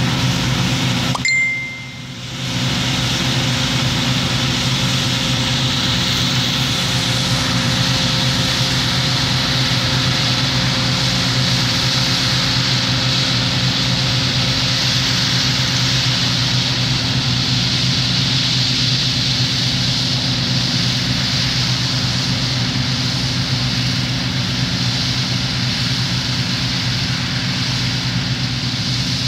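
Combine harvester running steadily while harvesting: a constant engine hum under the broad rush of the threshing machinery. A short high tone and a brief drop in level come about two seconds in.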